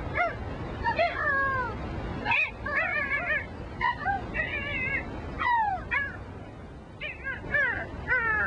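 High, wavering squawking and yelping calls, many in quick succession, with a brief lull about two-thirds of the way through.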